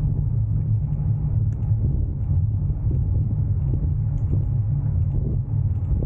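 A bicycle rolling along a forest path makes a steady low rumble, with small ticks and rattles running through it.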